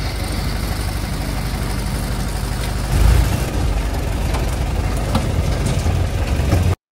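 Off-road jeep engine pulling steadily in four-wheel-drive low range, second gear, over a rough track, with a louder surge about three seconds in. The sound cuts off suddenly near the end.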